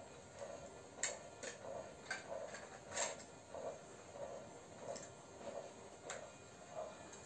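Small puppies whimpering in faint, soft cries repeating about twice a second, with a few sharp clicks in between.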